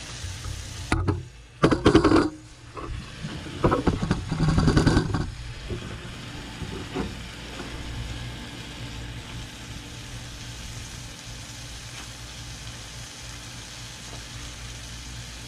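Bumps and rustling of the camera being handled and repositioned in the first few seconds, then a steady low rumble under a faint sizzle of stew simmering in a cast iron skillet on a camp stove.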